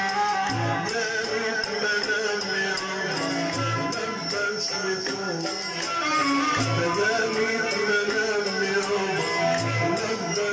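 Egyptian Sufi madih (devotional praise) music, amplified: a melodic passage over a fast, steady jingling tambourine-like percussion, with a deep drum beat about every three seconds.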